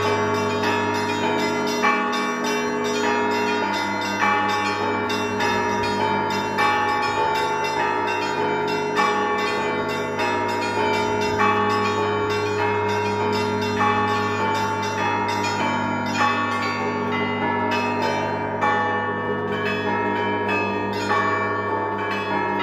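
Orthodox monastery bells of Zhyrovichy Monastery ringing a zvon. Smaller bells chime rapidly in a repeating pattern, a heavier stroke lands about every two seconds, and the big bell's low hum sustains beneath.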